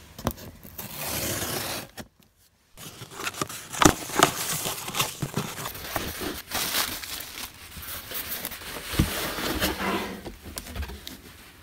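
Scissors slitting the packing tape on a cardboard shipping box, then the box flaps being pulled open and the cardboard handled, a run of crinkling, scraping and sharp clicks with one louder snap about four seconds in.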